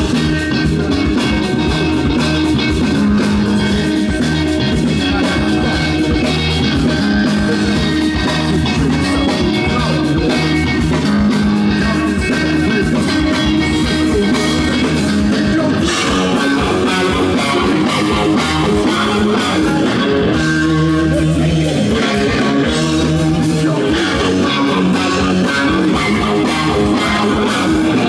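Live rock band playing through a stage PA: two electric guitars over bass and drums.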